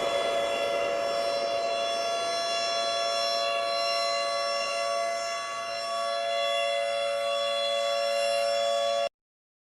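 Civil defence siren sounding a steady wail of two close notes, held level, that cuts off abruptly about nine seconds in.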